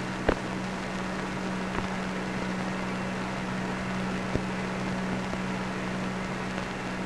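Steady hiss with a low hum from an open spacecraft-to-ground radio channel, with a few brief clicks.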